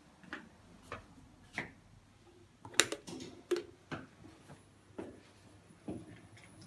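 Footsteps on a hard floor at an easy walking pace, with one sharper, louder click about three seconds in.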